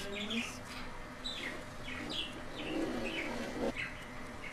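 Budgerigar chirping: a run of short falling chirps, two or three a second, over soft warbling chatter.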